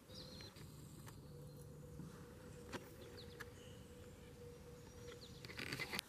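Quiet room tone: a faint steady hum with a few soft clicks.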